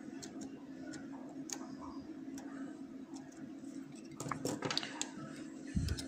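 Lock pick ticking and scraping on the pins inside a brass lock cylinder, with scattered light clicks and a denser run of clicks about four seconds in. A short low thump comes just before the end, over a steady low hum.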